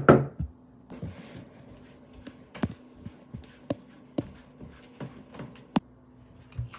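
A last knock on a door at the very start, then footsteps walking steadily, about two a second, toward the door, with a low thump near the end as the doorknob is grasped.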